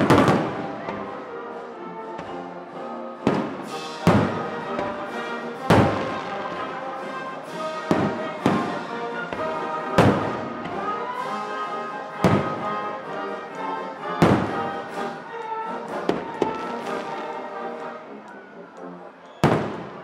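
Aerial firework shells bursting, about ten sharp booms spread through, the loudest right at the start, over continuous music.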